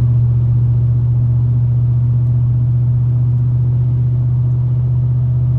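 A boat's motor running steadily at constant speed, a loud, even low drone with no change in pitch.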